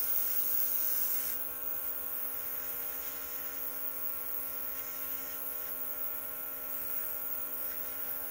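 Luminess airbrush compressor running with a steady hum, and air hissing out of the airbrush close to the face. The hiss drops off noticeably about a second and a half in while the hum carries on.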